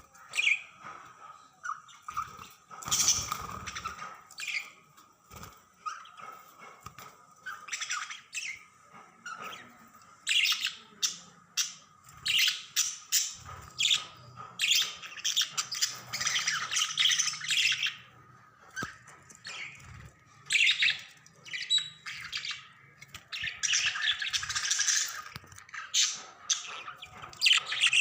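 Budgerigars chirping and squawking in quick, scratchy calls, with a few longer stretches of dense chatter.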